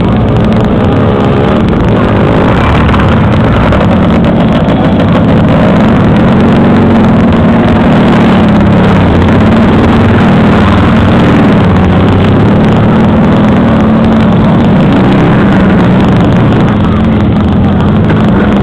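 Motorcycle and quad bike engines running loudly and continuously, with small rises and falls in pitch.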